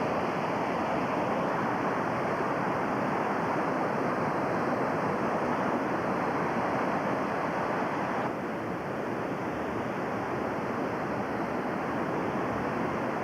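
The North Fork Wilson River rushing steadily, a constant hiss of flowing water that drops a little in level about eight seconds in.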